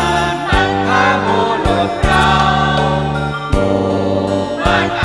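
A song with group singing over a band backing of held bass notes and drum hits.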